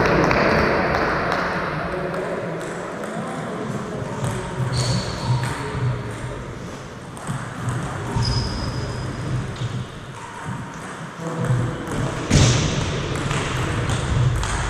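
Table tennis ball striking rackets and the table during a rally: scattered sharp clicks, some followed by a short high ringing ping, echoing in a large sports hall.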